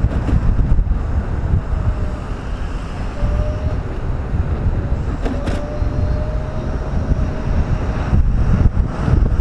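Motorcycle riding along in traffic, wind buffeting the helmet microphone over the engine's rumble. A faint steady whine runs through the middle.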